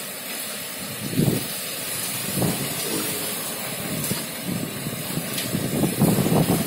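Heavy hail mixed with rain pelting down in a steady hiss, with irregular louder low thumps now and then, the strongest near the end.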